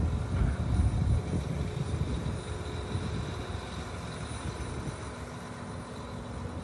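Large farm tractor's diesel engine running steadily, with wind buffeting the microphone in the first second or so.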